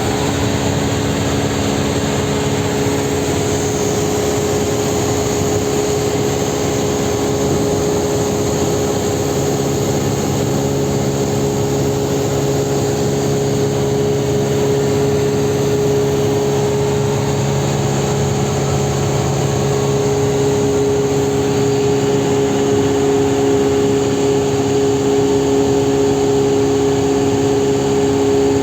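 Cessna 172R's four-cylinder Lycoming engine and propeller droning steadily in flight, with a lower hum added for a stretch in the middle.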